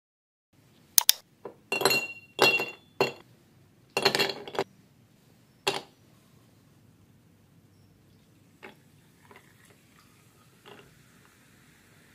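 Ice cubes dropped into a glass tumbler: a run of sharp, ringing clinks over about five seconds, followed by a few faint taps.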